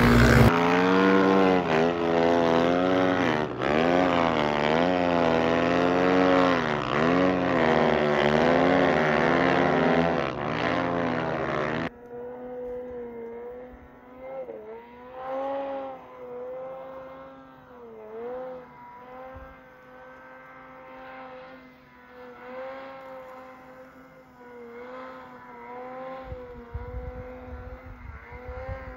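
Snow bike engine revving hard up and down close by. About twelve seconds in it cuts abruptly to a quieter snowmobile engine farther off, holding a steady pitch with a few brief dips in revs.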